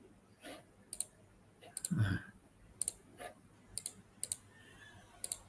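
Computer mouse clicking, mostly in quick double-clicks about a second apart, as folders are opened. A soft low thump about two seconds in.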